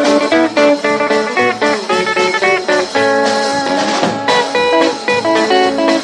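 Instrumental break in a rock and roll record, with electric guitar playing a run of quick notes over the band.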